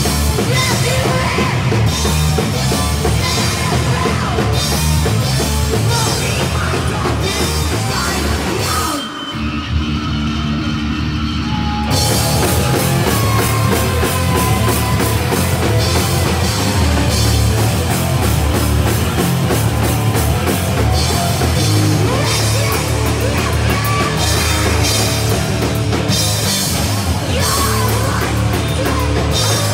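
Live punk band playing loud and fast, with distorted guitar, bass and a pounding drum kit with crashing cymbals. About nine seconds in, the drums stop for a few seconds, leaving guitar and bass notes ringing, then the full band crashes back in.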